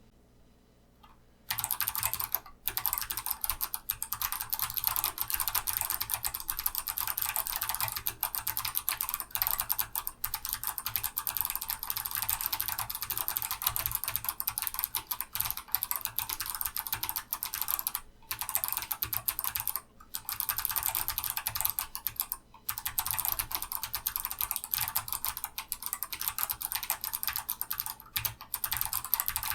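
Fast, continuous typing on a mechanical keyboard with clicky Kailh Box Navy switches and SA keycaps, in a 3D-printed case filled with glue, cast iron shavings and a foam pad. The typing starts after about a second and a half of silence and pauses briefly a few times.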